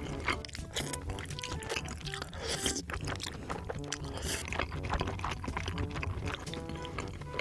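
Close-miked mukbang eating sounds, irregular wet chewing and slurping clicks, over background music with a steady beat.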